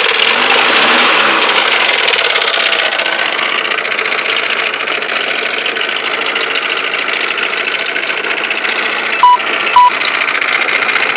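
Mitsubishi Galant engine running, its revs settling back toward idle in the first couple of seconds, with a fast, steady knocking running through it: the knock the owner is asking about. Two short, loud high-pitched beeps about nine seconds in.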